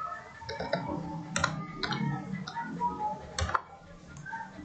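Computer keyboard being typed on: a handful of separate, irregularly spaced key clicks.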